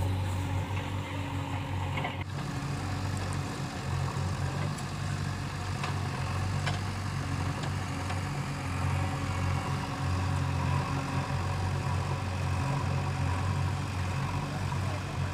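Heavy diesel engine running steadily at a constant speed, with a few faint clicks over it.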